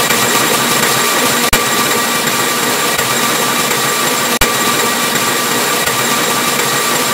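Harsh, heavily distorted digital noise with a few thin steady tones running through it, cutting out for an instant twice.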